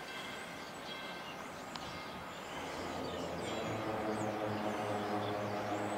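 A low, steady engine drone comes in about halfway through and grows louder, over a steady background hiss with a few faint high chirps.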